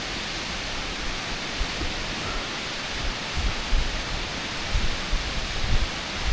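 Steady rushing of a waterfall, with wind buffeting the microphone in low gusts during the second half.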